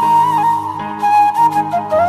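Background music: a slow melody of long held notes over a low accompaniment.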